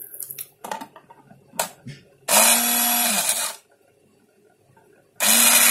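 Emily EPB-62001 200 W push-to-run portable blender, run in two short pulses by pressing the mug down onto the motor base: each a loud steady whirr of about a second that starts and stops abruptly, the second beginning near the end. Before the first, a few light plastic knocks as the mug is seated on the base.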